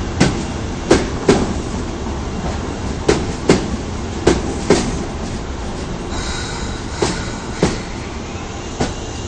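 Osaka subway Tanimachi Line 22 series train coming into the station: its wheels clack over rail joints in pairs, the pairs coming further apart as it slows. About six seconds in, a steady high-pitched squeal sets in, typical of braking wheels.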